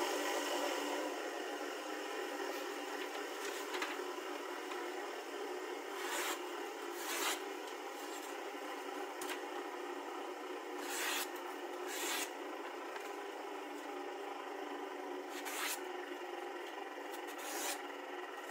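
Freshly sharpened knife blade slicing through a sheet of paper in several short, crisp strokes, the test of a razor edge, over a steady background hum.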